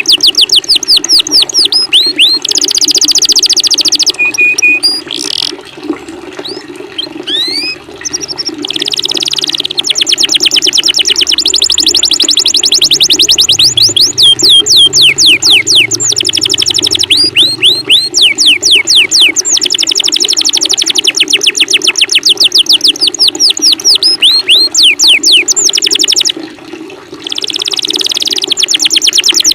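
Rapid-fire songbird chatter used as birdsong training audio: long runs of fast, sharply falling whistled notes, about ten a second, broken by short pauses. Under it runs a steady background of running water.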